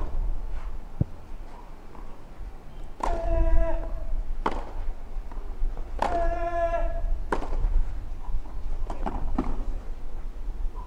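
A voice calls out twice in long, held shouts, about three seconds apart. A few sharp knocks sound between and after them, over a steady low rumble.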